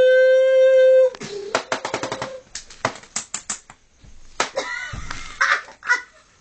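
A woman's high, squeaky voice holds a sung note for about a second and cuts off. A string of sharp clicks and taps follows, likely from the foil balloon being handled, then a few short squeaky vocal sounds near the end.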